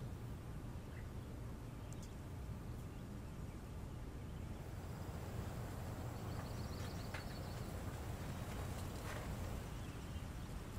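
Quiet outdoor ambience: a steady low rumble with a few soft clicks, and faint chirping about halfway through.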